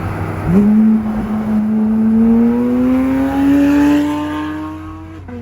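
Sports car engine pulling hard under acceleration: its note jumps up about half a second in, then climbs steadily in pitch for about four and a half seconds and drops off near the end.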